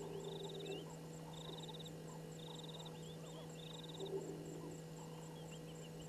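Natural bushveld chorus: an insect's pulsed trill repeating about once a second, a faster, higher ticking from another insect, and scattered short bird chirps. Two short low calls come in, one at the start and one about four seconds in, over a steady low hum.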